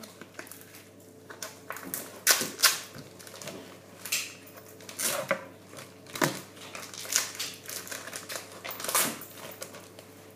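Irregular sharp clicks and knocks, roughly one a second: kitchen utensils and dishes being handled during food preparation.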